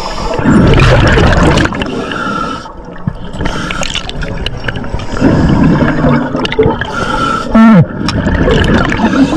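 Scuba regulator breathing heard underwater: two long rushes of gurgling exhaust bubbles, with quieter bubbling between them. There is a short falling tone about three-quarters of the way through.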